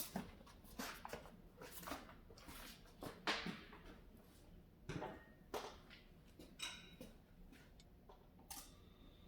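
Faint, irregular clicks, taps and short rustles of objects being handled.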